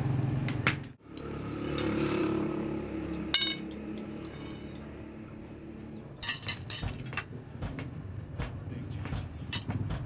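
Steel rods and scrap metal clinking in a blacksmith's forge: one hard, ringing metal clink a little over a third of the way in, then a scatter of lighter clinks and knocks through the second half, over a low steady hum.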